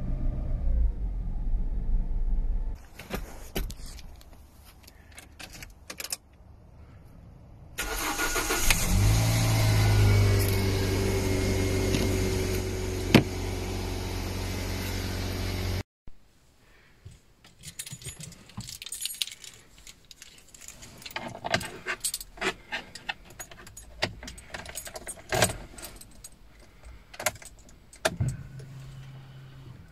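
A GM Corsa Classic's four-cylinder engine runs on 100% ethanol until a cut about three seconds in. About nine seconds in, a Toyota Corolla E11's 1.4-litre 4ZZ-FE four-cylinder is cold-started in frost: it cranks briefly, catches and settles to a steady idle. After a cut, a key clicks and rattles in the Opel Corsa D OPC's ignition, and a low steady hum begins near the end.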